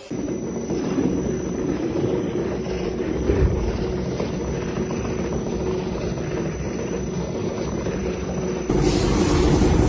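Shoe-finishing machine running with a steady motor hum as the leather sole edge is pressed against its spinning wheel. It gets louder and hissier near the end.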